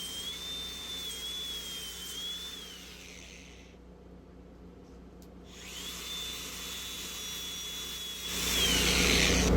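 Handheld power grinder whining at high speed, spinning down about three seconds in, then spinning back up about six seconds in and running steadily. Near the end a louder, rougher rushing noise builds as it works the steel, in line with stripping paint off the shock mounts before welding.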